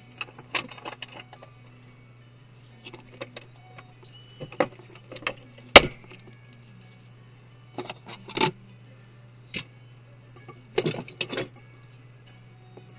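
Scattered clicks, taps and light clatter of small plastic and metal parts and tools being handled while taking a computer apart, with one sharp snap a little before the middle, over a steady low hum.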